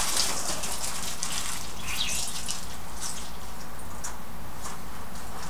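Water at a kitchen sink splashing and dripping as baking paper is wetted and handled under the tap, with scattered small clicks and splashes.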